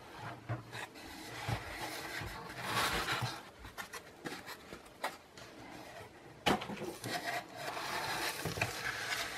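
Foam packing and cardboard box being handled: rustling and scraping as a foam sheet is lifted out and the plastic-wrapped contents are reached for, with scattered knocks, the sharpest about six and a half seconds in.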